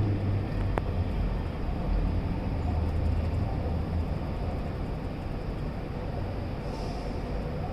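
CTA 'L' Morrison-Knudsen 3200-series train running on the tracks, its low rumble fading gradually as it pulls away. A single short click sounds about a second in.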